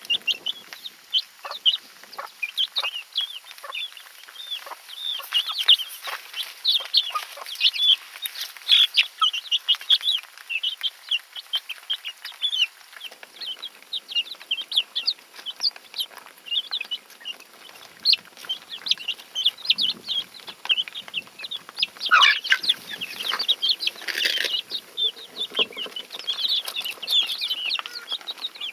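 A flock of young chickens peeping and chirping: a dense, continuous chorus of short high calls, with a few louder scuffling noises about three-quarters of the way through.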